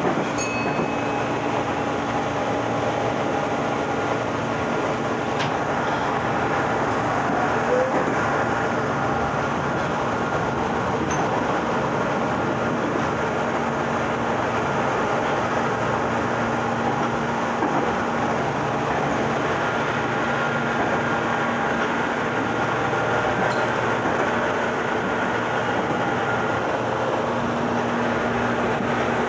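Meitetsu 6000 series resistor-controlled electric train running at a steady speed: a continuous rumble of wheels on rail with a faint steady hum from the running gear.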